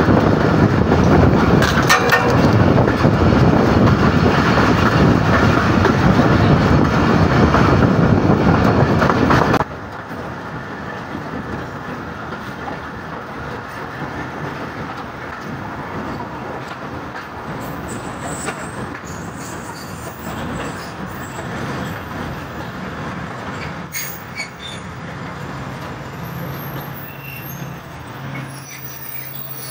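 Passenger train coaches rolling along the track, loud wheel and rail noise heard from the coach's open side. About ten seconds in the sound drops abruptly to a quieter, slower rolling as the train runs into a station.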